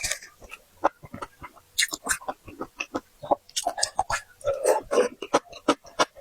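Close-up eating sounds: an irregular run of quick clicks and smacks from chewing and sucking on seafood.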